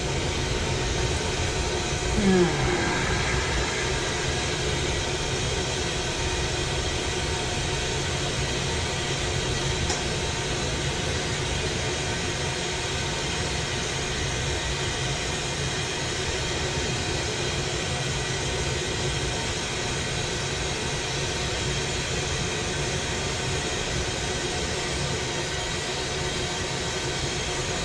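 Glassblower's bench torch flame burning with a steady rushing noise while glass is worked in it. A short, louder sound with a falling pitch comes about two seconds in.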